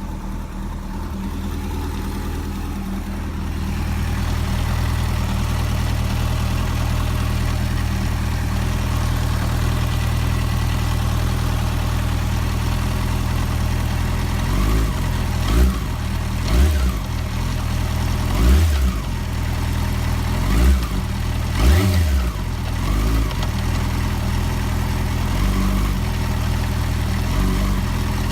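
Yamaha FZ6 S inline-four engine idling steadily, then from about halfway through blipped sharply about nine times, each rev rising and dropping back within a second. Sharp throttle openings like these are when the owner hears a knock in the gearbox by the front sprocket, which he puts down to a worn clutch basket.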